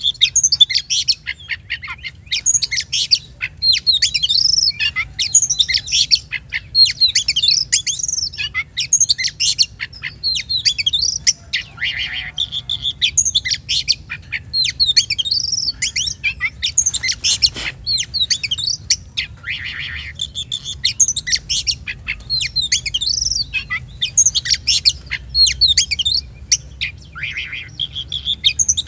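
Oriental magpie-robin (kacer) singing a loud, nearly unbroken run of rapid, varied whistles and chirps: a lure recording meant to provoke a kept kacer into song.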